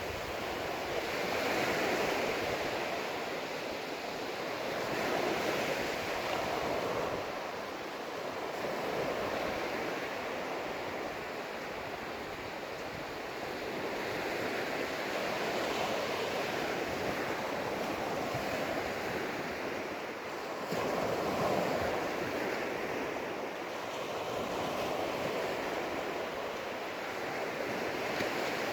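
Surf breaking and washing up a sandy beach: a steady rush of waves that swells and fades every few seconds.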